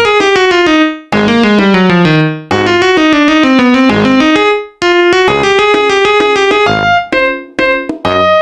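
Background music: a quick piano or electric keyboard melody in fast runs of notes, pausing briefly a few times.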